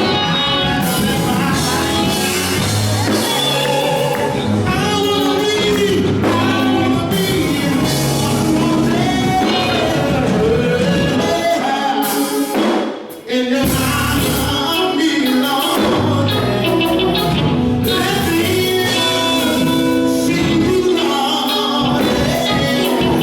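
Singing over instrumental music, with a short break in the music about halfway through.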